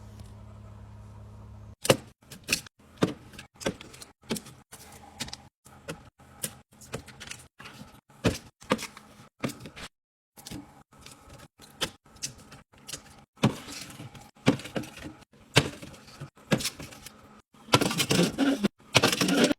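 Fridge restocking: a quick run of sharp clicks, clacks and knocks as containers, jars and packaging are handled and set into the fridge, in short abruptly cut snippets, with a denser, louder rustling stretch near the end. A low steady hum is heard before the clicking starts, about two seconds in.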